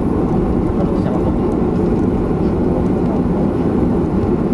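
Steady low rumble of jet aircraft noise.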